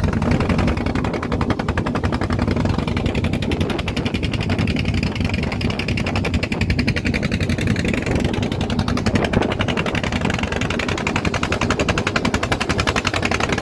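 Outrigger fishing boat's engine running steadily under way, a rapid, even stream of pulses.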